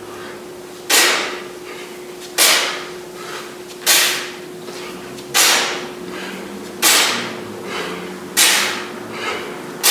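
A man's sharp, forceful breaths out, one with each single-arm kettlebell swing: six of them, about one every second and a half, each starting suddenly and fading quickly, with softer breaths in between. A faint steady hum runs underneath.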